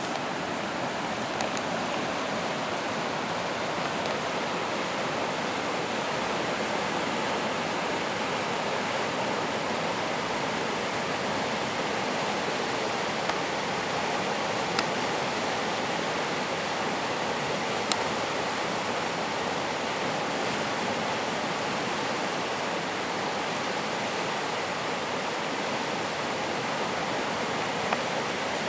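Pedernales River running high after a flood: fast water rushing steadily, with a few faint clicks.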